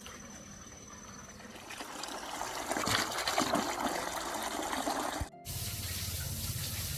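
Running water, a steady splashing gush that grows louder about two seconds in, with a brief cut a little after five seconds; faint background music underneath.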